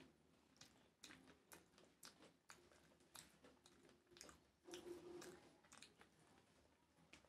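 Faint, sharp wet clicks, about one or two a second, from a person eating rice and curry by hand off a banana leaf: fingers squishing and mixing the rice, and chewing.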